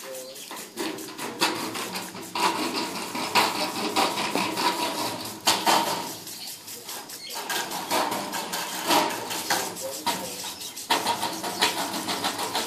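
German Shepherd dog biting and chewing at a plastic lawn sprinkler: fast runs of clicks and clatter that come in uneven bursts, over a steady hiss.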